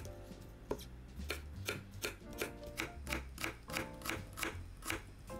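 Kitchen knife chopping on a cutting board: two slow cuts, then a steady run of about five strokes a second. Background music plays underneath.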